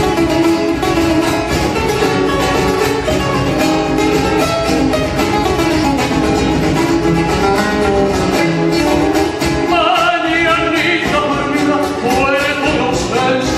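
Folk song with rhythmically strummed guitar; a singing voice comes in about ten seconds in.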